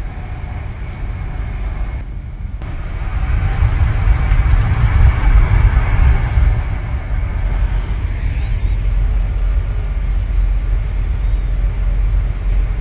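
Running noise inside a passenger train coach moving along the line: a steady low rumble of wheels on rail with a rushing hiss, swelling louder for a few seconds about a third of the way in.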